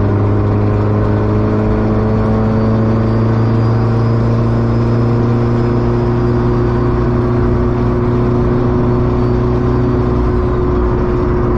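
Honda hatchback's engine droning steadily under road rumble, heard from inside a cabin freshly lined with Second Skin sound deadening, its pitch rising slowly as the car cruises.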